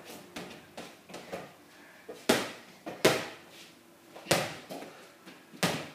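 A ball being kicked and bouncing on a wooden floor: four loud sharp thumps, roughly a second apart, with lighter knocks between.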